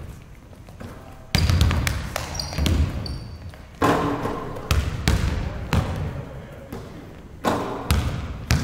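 Several basketballs bouncing on a hardwood gym floor: sharp, irregular bounces and dribbles echoing through the hall, starting about a second in.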